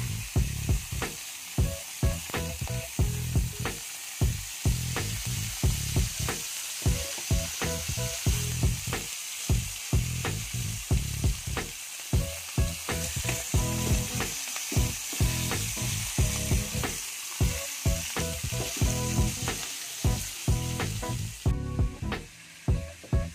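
Oil sizzling steadily around two whole trevally pan-frying, under background music with a regular beat about twice a second. The sizzle stops about a second before the end, leaving the music.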